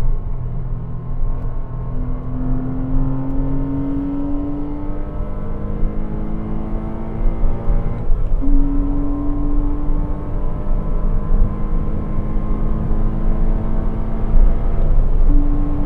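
Porsche Cayman 987's 2.7-litre flat-six under hard acceleration, its note climbing slowly in pitch, with gear changes about 8 seconds in and near the end. A low rush of wind and tyre noise runs underneath.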